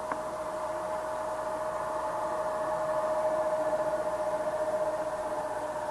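Steady whine of jet airliner engines heard from afar, swelling slightly in the middle, with one short click just after the start.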